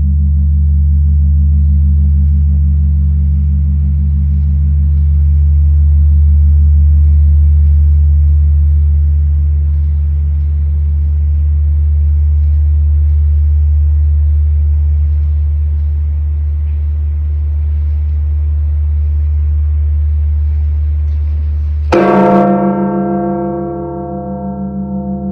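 The Campana Mayor, the great bronze bell of Mexico City's Metropolitan Cathedral, tolling slowly in mourning. A deep hum from the previous stroke lingers and fades slowly, then the bell is struck once near the end, a sharp clang that rings on with many bright overtones above its deep hum.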